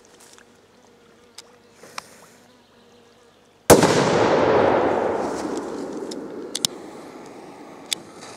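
A firecracker goes off with a single sharp, loud bang a little over three and a half seconds in. Its rolling tail dies away over about three seconds.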